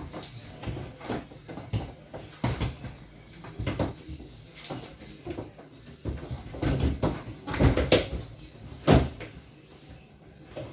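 Fridge parts such as shelves and drawers being put back in place: irregular knocks, scrapes and clatter, with a sharp knock near the end.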